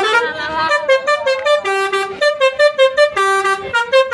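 Telolet basuri musical bus horn playing a melody: a pitch glide, then a quick run of short notes hopping between two pitches, broken twice by a longer, lower note.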